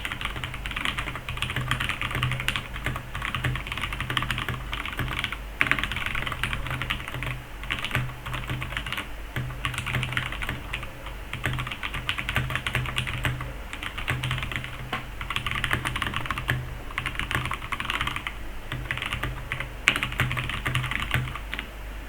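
Mechanical keyboard with brown tactile switches being typed on quickly and continuously: a dense run of key clacks with a few short pauses.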